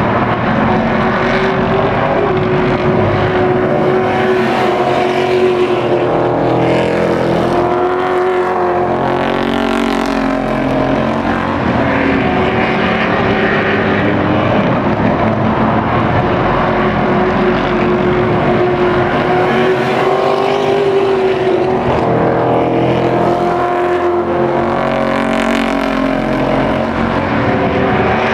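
Engines of a field of race trucks running hard around a short oval track, their pitch rising and falling over and over as they lap.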